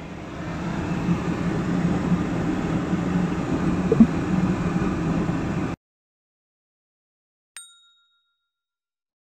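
A steady rumbling background noise that grows louder over several seconds and then cuts off abruptly. After a second and a half of dead silence comes a single bright electronic ding that rings briefly, an added end-of-video sound effect.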